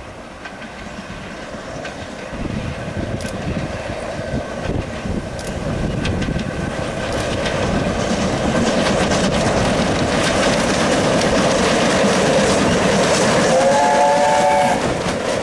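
BR Standard Class 7 'Britannia' Pacific No. 70013 Oliver Cromwell approaches under steam with its train of coaches, growing steadily louder as it nears and runs past. Near the end a brief whistle-like tone sounds for about a second.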